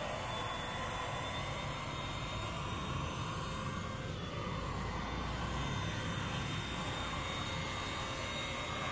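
Handheld electric paint sprayer running steadily while spraying Plastidip: a constant motor whine over the hiss of the spray.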